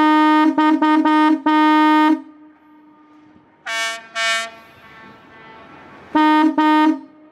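Ship horns exchanging signals: a deep horn sounds a quick run of five short blasts, a second, higher-pitched horn answers with two short blasts, and the deep horn then gives two short blasts of its own.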